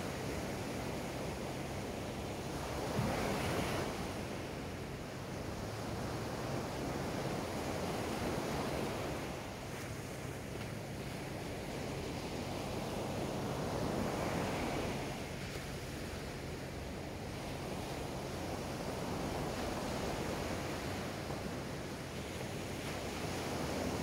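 Surf on a sandy beach: low waves breaking and their foam washing up the sand in a continuous rush. It swells louder with a breaking wave about three seconds in and again around the middle.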